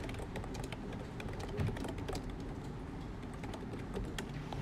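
Scattered, irregular clicks and taps of a computer keyboard, a few per second, over a steady low background noise.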